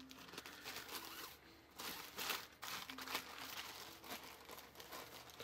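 Plastic bread bag crinkling and rustling as a hand reaches in and pulls out slices of bread, in faint, uneven rustles that are loudest about two seconds in.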